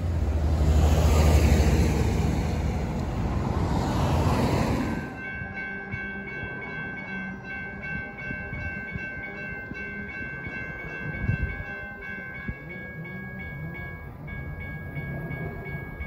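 Loud rushing rumble of a light rail train running on the track for about five seconds, which cuts off abruptly; after that, steady music with held tones and a light, regular ticking beat.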